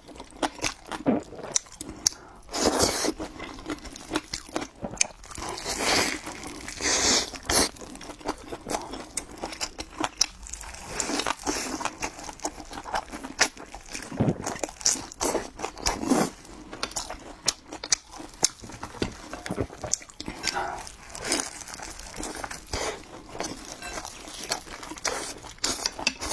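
A person eating close to the microphone: crunchy biting and chewing, a dense run of small clicks with louder crunches every few seconds.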